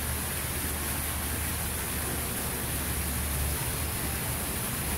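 A steady, even hiss with a low rumble beneath it: outdoor ambient noise, with no distinct events.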